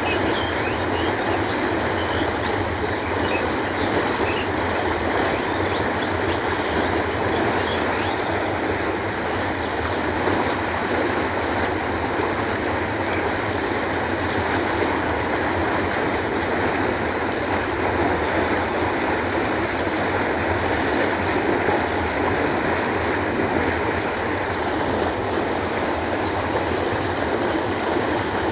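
Canal water flowing, a steady, unbroken rushing.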